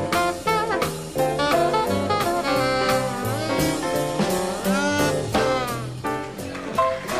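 Swing jazz combo playing live: an alto saxophone plays a melody line with bent notes over plucked upright bass and a drum kit keeping steady time.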